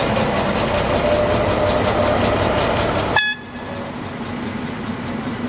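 Köf II diesel shunting locomotive, Deutz-built, running with a loud steady engine drone; about three seconds in the sound breaks off abruptly with a very brief horn toot, and the engine continues more quietly.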